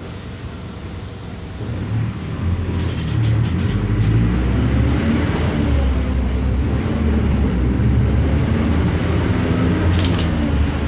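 Mercedes-Benz OF 1519 bus's diesel engine running; it grows louder about two seconds in and settles into a steady low drone, with a few light rattles.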